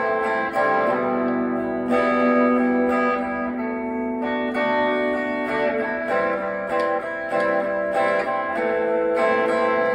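Cherry-red semi-hollow electric guitar played plugged in, with plucked chords and single notes that ring on, the harmony changing every second or two.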